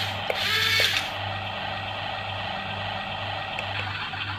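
Yi Gong YG258C 11-channel RC toy excavator running: a steady electric hum and whine, with a louder whine that glides in pitch for about the first second as the arm and bucket move.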